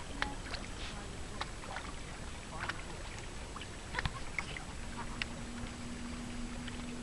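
Lake water lapping and splashing at the shore, with scattered short sharp splashes and clicks. A faint steady hum joins about five seconds in.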